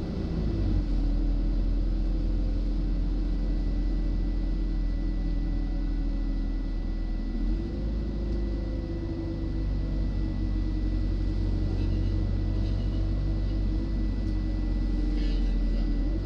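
City bus running, heard from inside: a steady low rumble with a drone that drops in pitch near the start and climbs again about halfway through and near the end as the bus slows and picks up speed.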